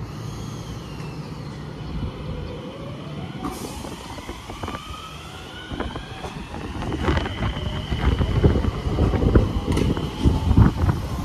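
Enshū Railway electric train (car 2004) pulling into the platform: a high motor whine with several tones that glide upward as it approaches. From about seven seconds in comes a louder low rumble with knocking and clatter from the wheels as the cars pass close by.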